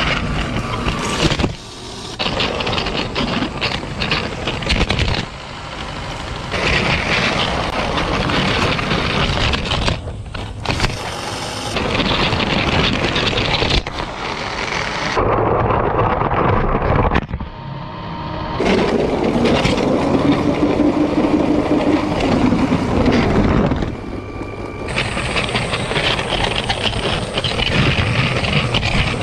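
LEGO train running along plastic track, a rattling, whirring run of motor and wheel noise picked up by an onboard camera. The sound changes abruptly every few seconds.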